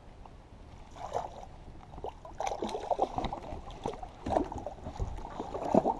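Water splashing and sloshing at the side of a kayak in irregular bursts as a hooked bass is fought and brought aboard.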